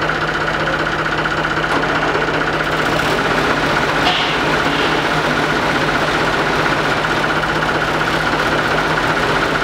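Oliver HG crawler tractor's engine running steadily.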